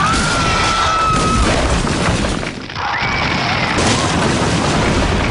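Film-style destruction sound effects: a dense, loud crashing and rumbling din of a high-rise collapsing. A single high cry is held over it for the first second and a half, and a shorter arching cry comes about three seconds in.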